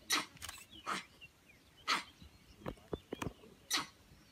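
Gray langur giving a string of short, sharp alarm barks, about seven of them at uneven intervals, at a tiger below it in the tree; faint bird chirps between.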